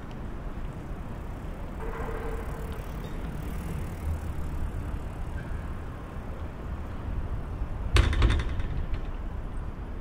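Outdoor city ambience by a dock: a steady low rumble of distant traffic, broken about eight seconds in by a short, sharp clatter of several quick knocks.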